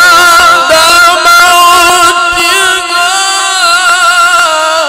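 A man chanting the Quran in melodic tajweed style, drawing out long, ornamented notes that waver in pitch, with a short break about three seconds in; the voice stops near the end.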